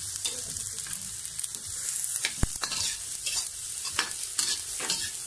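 Sliced kikiam, tomato and onion sizzling in hot pork fat in a metal wok while a slotted metal spatula stirs and scrapes them against the pan, with repeated scrapes and a sharp clink about two and a half seconds in.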